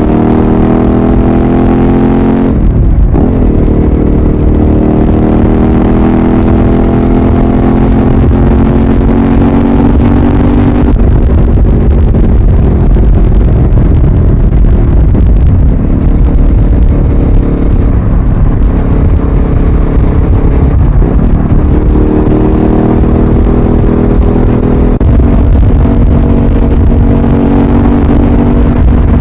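Suzuki SV650A's V-twin engine and exhaust under way. The engine note rises as it accelerates, drops abruptly about two and a half seconds in as at a gear change, climbs again, then holds steadier with further shifts in pitch later on.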